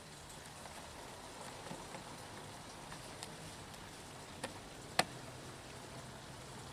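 Coolant draining out of a Caterpillar 3412 diesel engine and splattering into a can, a steady trickling patter. A few sharp clicks cut through it; the loudest comes about five seconds in.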